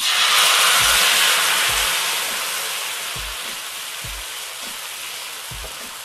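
Thin rice batter sizzling loudly as it is ladled onto a hot dosa griddle. The hiss starts suddenly and slowly fades as the lacy dosa sets.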